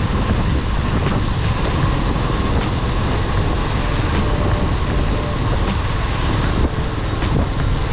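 Steady city street traffic noise: a dense, even rumble of vehicles, heaviest in the low end.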